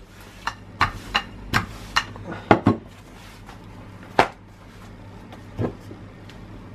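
A marble rolling pin knocking and clicking on a kitchen counter as pizza dough is rolled out: a dozen or so irregular sharp knocks, the loudest about two and a half and four seconds in.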